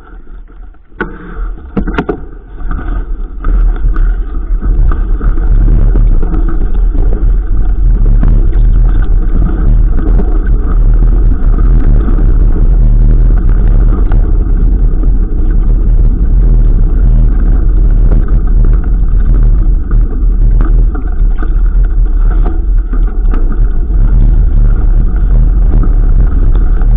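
Loud, steady rumble of wind and ride noise on the microphone of a camera carried on a moving mountain bike. It builds over the first few seconds and then holds.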